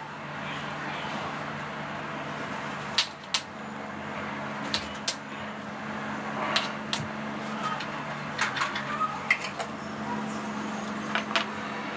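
A knife cutting and peeling a ripe mango: scattered light clicks and taps of the blade, a dozen or so, some in quick pairs, over a faint steady hum.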